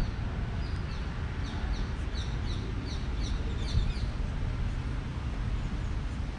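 A bird chirping in a quick run of short, high, falling notes, about two a second, which stop about four seconds in. Under it, wind rumbles on the microphone.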